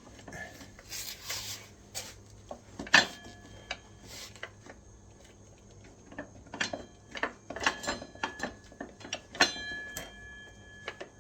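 Irregular metallic clinks and knocks of tools working on a motorcycle's rear axle. Two sharp strikes, about 3 s in and again near 9.5 s, ring on briefly like struck metal.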